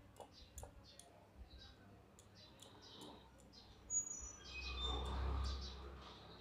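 Small birds chirping in the background. About four seconds in, a light knock and then a soft rubbing of hands working a dough ball in cornflour on a wooden board.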